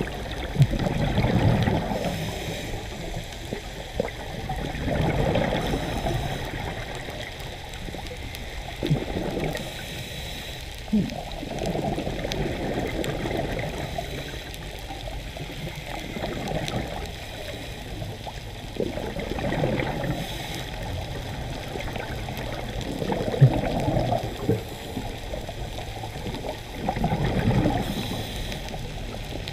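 Muffled underwater sound of a diver's breathing: bursts of exhaled bubbles gurgling every four seconds or so, with a fainter hiss between them.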